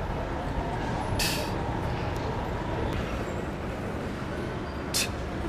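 Steady low rumble of an idling city bus, with a short sharp hiss of released compressed air from the bus about a second in. Another brief hiss comes near the end.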